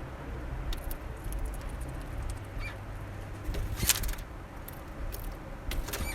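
Small finches at a bird feeder making scattered sharp taps and clicks as they peck and shift on it, with a cluster of taps about four seconds in, over a low steady rumble.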